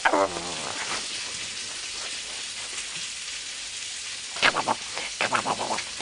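A person's voice gliding down briefly at the start, then a steady soft hiss with fabric rustling as a hand moves over the bedding, then about four and a half seconds in a quick run of short, rhythmic voice sounds.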